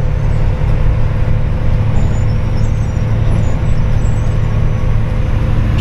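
Diesel engine of a Kenworth dump truck droning steadily at highway cruising speed, heard inside the cab together with tyre and road noise.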